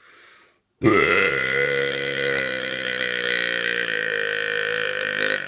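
A woman's single long, loud belch, beginning about a second in with a brief drop in pitch, then held at a steady low pitch for about five seconds.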